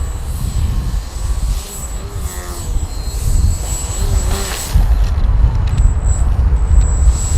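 Electric brushless motor and propeller of an RC aerobatic plane in flight, its pitch gliding up and down briefly with the throttle, under a heavy rumble of strong gusting wind on the microphone.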